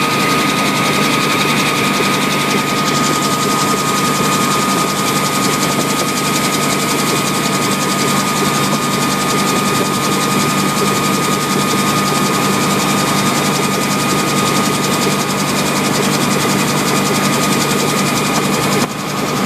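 Helicopter engine and rotor noise heard from inside the cabin in flight: a loud, steady drone with a steady high-pitched tone running through it, dipping briefly just before the end.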